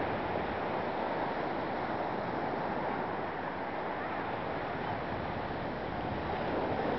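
Steady wash of ocean surf on a sandy beach, mixed with wind rushing over the microphone.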